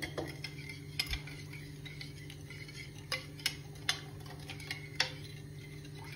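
A spoon clinking against dishware: about seven separate light clinks, a pair about a second in and a cluster around the middle, over a steady low hum.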